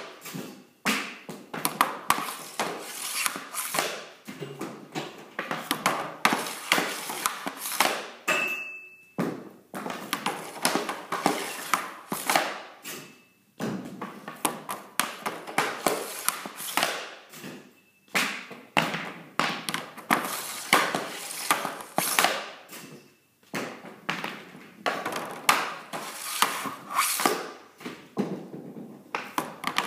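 Hockey snap shots with an Easton Synergy EQ50 stick off a plastic shooting board: repeated clacks of the blade and puck on the board, then pucks slamming into the net and the garage around it, over and over every second or two. About eight seconds in, one hit rings with a short ping.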